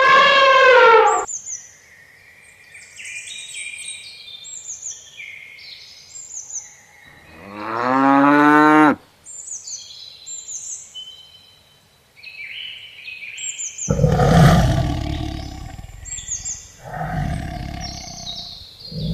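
Separate animal calls over continuous high birdsong chirps: a short pitched call falling in pitch at the start, a longer pitched call rising in pitch about eight seconds in, then two loud, rough calls near the end.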